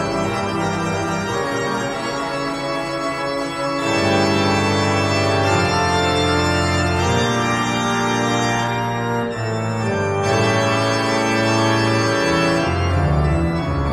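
Music of sustained organ-like keyboard chords, held notes changing every second or two.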